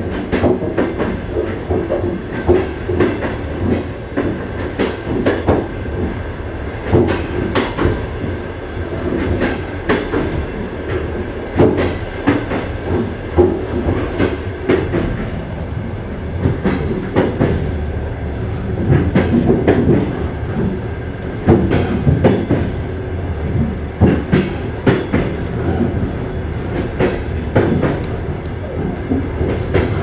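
Wheels of a Russian passenger railway car clattering over the rail joints of jointed track, in repeated clusters of sharp knocks over a steady rumble, heard from inside the car's vestibule.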